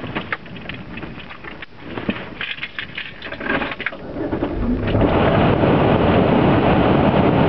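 Clicks and rustling inside a car, then about five seconds in a loud steady rushing noise sets in as the car's engine starts running.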